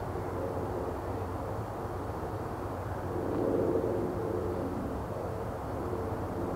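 Steady low hum of distant engine noise, swelling briefly about three seconds in.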